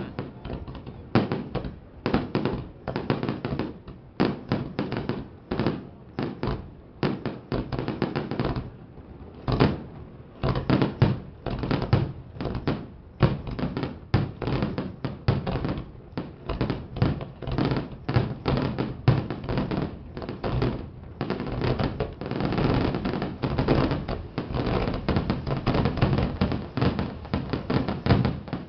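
Fireworks display: a rapid barrage of aerial shell bursts, several bangs a second, growing into a near-continuous rumble of bursts for the last several seconds.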